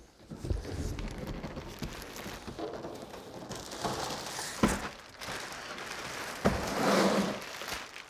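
A large cardboard shipping box scraping and knocking as it is lifted up and off a heat pump outdoor unit, with the rustle of plastic wrap being pulled off. There are a few sharp knocks, and the loudest rustling comes near the end.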